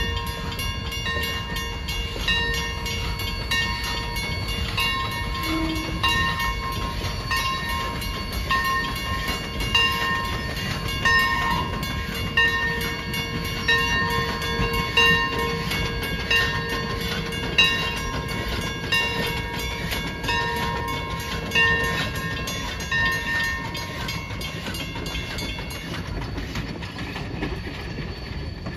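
Narrow-gauge passenger cars rolling across a road grade crossing with a low steady rumble, while the crossing's warning bell rings in even strokes about once a second. The bell stops near the end, as the Heisler geared steam locomotive reaches the crossing.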